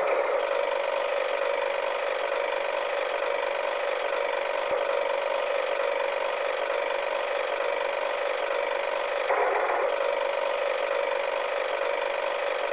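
Small electric motor and gearbox of a battery-powered toy tractor whirring steadily as it drives along, briefly louder about nine seconds in.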